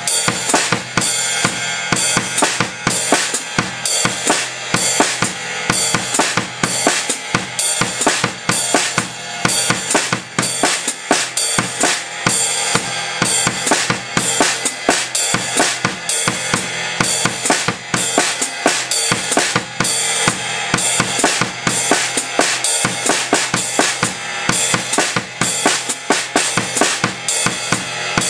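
Drum kit played steadily: a ride cymbal keeps time over a foot-closed hi-hat on every beat, while the bass drum and snare play the written rhythm figures of a reading exercise.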